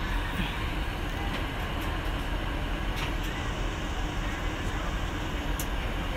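Steady airliner cabin noise: an even, low hum and rush of air, with a couple of faint clicks.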